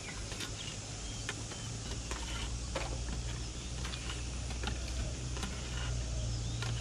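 Plastic floorball stick blades tapping perforated plastic balls back and forth on concrete during stickhandling practice: irregular light clicks, a few a second, over a steady low rumble.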